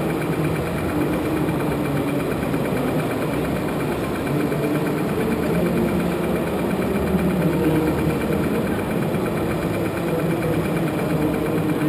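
Steady engine-like running sound, like a vehicle engine at idle, from the radio-controlled Liebherr LTM 1090 model crane while it holds a model ship at the water.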